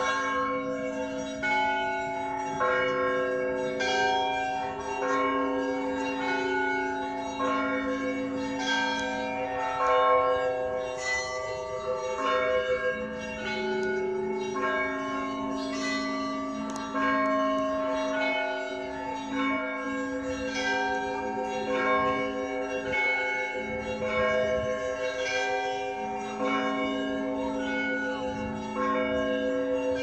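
Russian Orthodox church bells being rung: bells of several pitches struck in a steady rhythm, their tones overlapping and ringing on between strokes.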